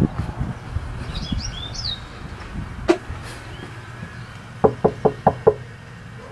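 Five quick knuckle knocks on a wooden cabin door near the end. A bird chirps a few times about a second in.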